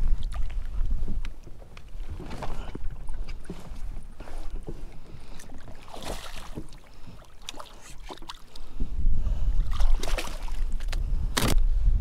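Wind rumbling on the microphone aboard a fishing kayak, with a few water splashes and knocks from handling on the boat; one sharp knock near the end.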